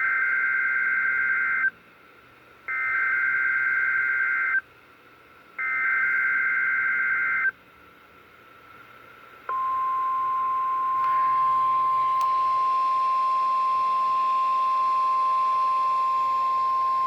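Emergency Alert System signal on NOAA Weather Radio: three bursts of SAME digital header data, each a harsh two-pitch warble lasting a little under two seconds with about a second between them. After a two-second pause, the steady single-pitch 1050 Hz weather radio alert tone begins and holds, with radio static hiss rising under it. The header and tone code a Required Weekly Test and trip alert receivers.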